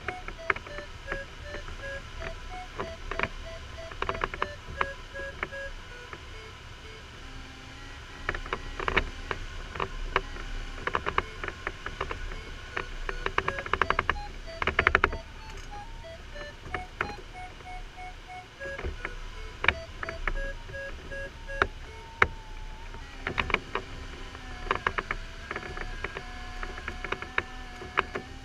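A glider's audio variometer beeping in short, evenly spaced tones whose pitch steps up and down as the climb rate changes, with a steadier tone in places. Frequent sharp clicks and knocks from the cockpit and a low rush of airflow run under it.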